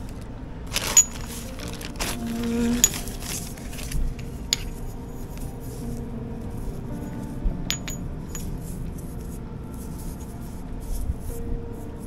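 Small metal bike tools, a folding multi-tool and steel CO2 cartridges, handled and set down on a concrete floor: several sharp metallic clinks with a brief ring.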